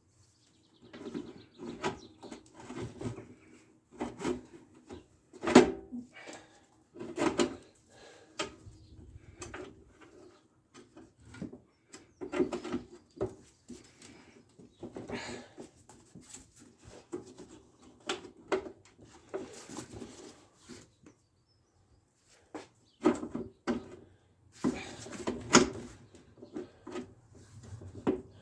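Irregular knocks, clicks and scraping from hands working metal parts and tools during a lawn mower front axle repair, with short pauses and one brief quiet spell past the middle.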